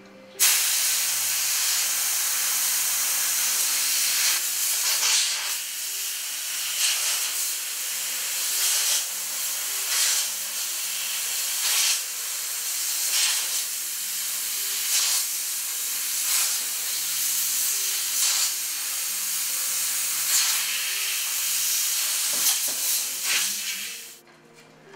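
Compressed air hissing from a hose nozzle as it blows dust out of a plasma TV's circuit boards, in uneven gusts. It starts suddenly about half a second in and stops about a second before the end.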